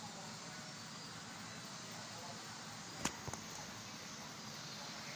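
KDK WZ56P industrial ceiling fan running steadily, a constant rush of air. A sharp click about three seconds in, followed by two fainter ones.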